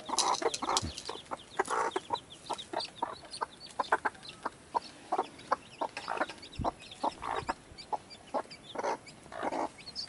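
Newly hatched chicks peeping constantly in short high chirps, with a mother hen clucking among them.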